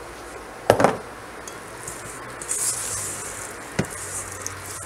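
A silicone spatula mixing ground meat and breadcrumbs in a stainless steel bowl, a soft scraping and stirring, with two sharp knocks, one about a second in and a smaller one near the end.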